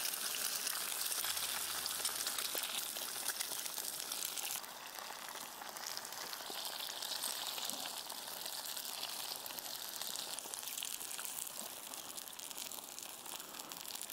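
Eggs and maple sausage sizzling in a hot non-stick pan over a small wood-burning camp stove. The steady frying hiss drops suddenly in level about four and a half seconds in, then carries on.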